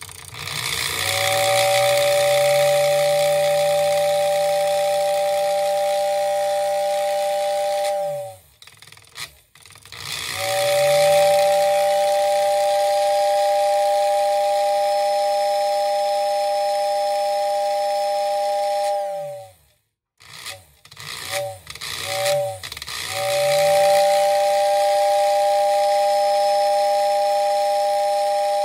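Freshly rebuilt postwar Lionel 2426W tender whistle blowing a steady two-note whistle with an airy hiss behind it. It sounds two long blasts, then two quick toots, then a third long blast. Under each blast its small motor's hum rises in pitch as it spins up and falls away as it winds down.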